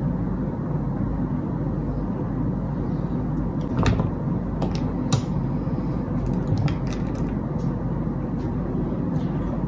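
Steady low rumbling background noise with a few light, sharp clicks scattered through it, the clearest about four and five seconds in.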